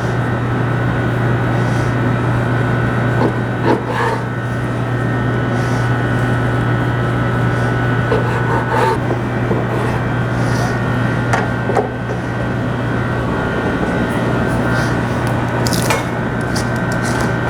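Knife sawing back and forth through a smoked eye of round roast on a cutting board, with scattered light taps of the blade, over a steady low hum.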